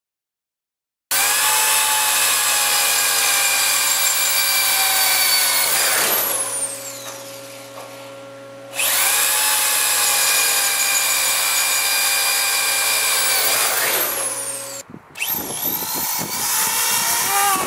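Corded electric drill running at speed as the bit bores into steel: a loud, steady, high whine that eases off for a couple of seconds midway and then picks up again. Near the end the sound changes to a drill speeding up and slowing down.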